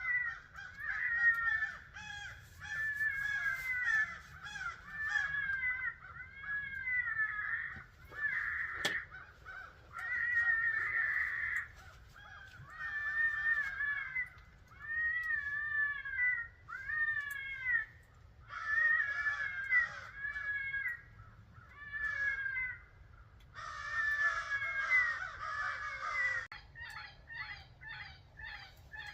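Electronic predator caller playing a rabbit distress call: repeated raspy squealing cries, each a second or two long with short gaps between them. Near the end the cries turn into quicker, shorter chirps.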